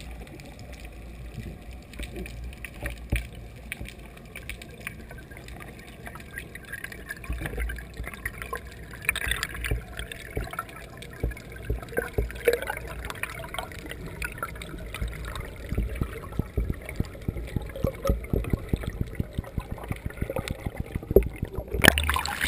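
Underwater sound heard through a camera housing: a muffled low rumble with many irregular clicks and crackles, then a rush of splashing water about 22 seconds in as the camera breaks the surface.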